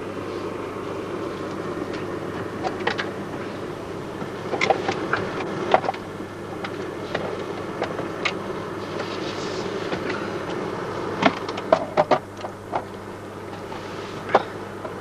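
Rustling and handling of clothing and sleeping-bag gear, with scattered sharp clicks and knocks, clustered a few seconds in and again towards the end. A steady low rushing noise runs underneath.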